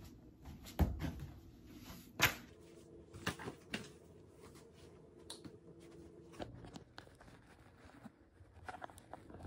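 Scattered soft knocks and clicks of a person moving about a carpeted room, the loudest a low thump about a second in and a sharp click a second later, over a faint steady hum.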